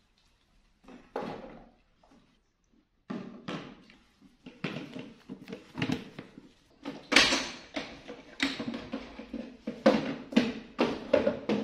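A run of irregular knocks and thuds, with one short bump about a second in and then busier, louder knocking from about three seconds in.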